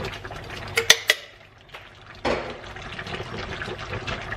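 Sauce poured from a bottle into a pan of simmering pork and chickpeas, with two sharp clicks about a second in. About two seconds in, a spoon starts stirring in the stainless steel pan.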